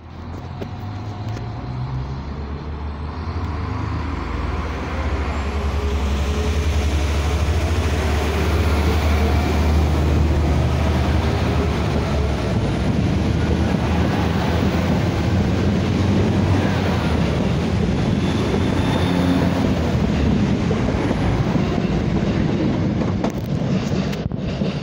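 NI Railways CAF Class 4000 diesel multiple unit pulling away from the platform: its diesel engine hum rises in pitch as it accelerates, then a loud steady rumble of engines and wheels on the rails as the carriages pass. The sound eases off near the end as the train draws away.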